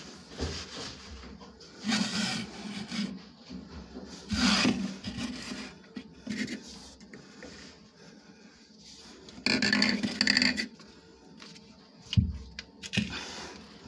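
PVC pipe, fittings and tools being handled: scraping and rubbing in short bursts, the longest about two-thirds of the way in, then a couple of knocks near the end.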